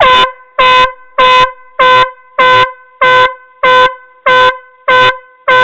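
Air horn sounding a blasting warning signal: about ten short, loud, identical blasts in an even rhythm, a little under two a second, warning that an explosive charge is about to be detonated.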